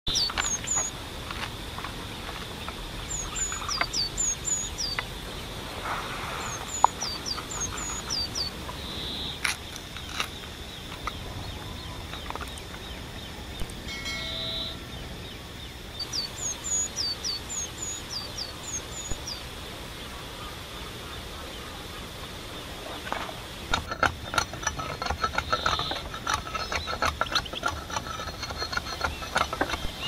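Small birds chirping in short repeated notes over a faint steady outdoor background, with scattered knocks. From about 23 seconds in comes a run of rapid, irregular knocking.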